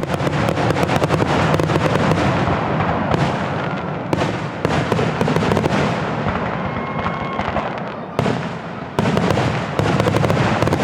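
Fireworks display: a dense, continuous crackling of many bursts, with fresh volleys breaking in about four, eight and nine seconds in.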